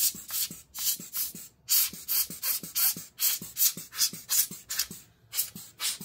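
Small air-blower duster puffing air in quick repeated bursts, about four a second, blowing dust out of a laptop's insides.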